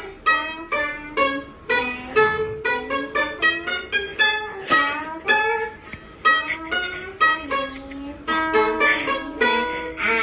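Background music: a melody of quick plucked-string notes, several a second, some sliding in pitch.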